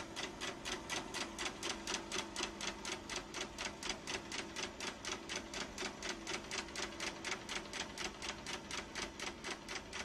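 Rapid, even clicking, about five clicks a second, over a faint steady hum.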